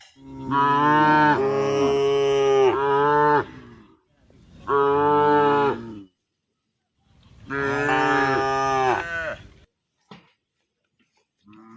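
A cow mooing three times: a long call, a short one, then another long one, each a loud, drawn-out low call.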